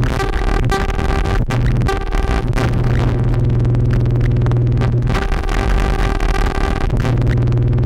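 Analog modular synthesizer playing loud, dense electronic noise music: a harsh wash with steady high tones over a low drone that cuts in and out, held longest in the middle, with a few sharp clicks.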